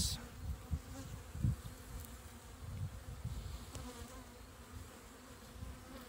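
Honeybees humming and buzzing in a steady drone over an open hive, with a low irregular rumble underneath.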